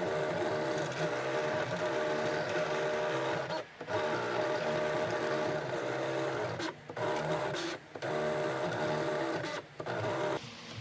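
GCC iCraft vinyl cutter's motors whirring steadily as the blade carriage and rollers cut a design into a sheet of film, with short pauses about four times as the head stops and changes direction.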